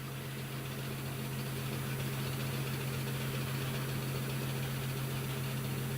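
A steady low machine hum with a faint hiss over it, unchanging throughout.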